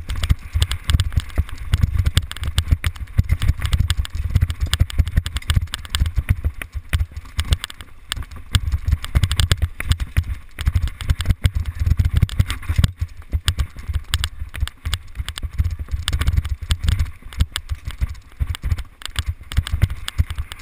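Mountain bike riding fast down a dirt singletrack, with constant irregular rattling and knocking as it runs over bumps and roots, and low wind rumble on the microphone.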